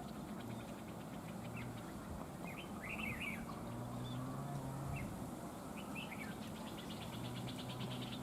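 Red-whiskered bulbuls calling in short chirping phrases, a few times.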